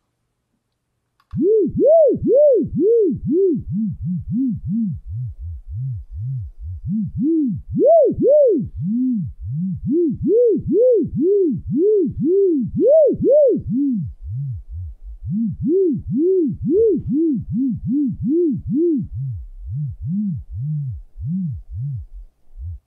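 Synthesized low sine tone, frequency-modulated by recorded infrasound from Villarrica volcano, swooping up and down in pitch about twice a second. The swoops rise higher or stay lower as the infrasonic tremor strengthens and weakens. The tremor comes from open-vent degassing of the lava lake, with a peak near 1 hertz. The tone starts about a second in.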